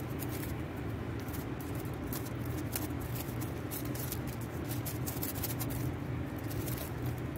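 Plastic gift wrap crinkling and rustling in irregular small crackles as it is folded and pressed around a bouquet. A steady low hum runs underneath.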